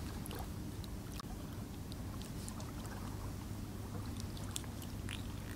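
Steady low background rumble with a few faint clicks and taps scattered through it.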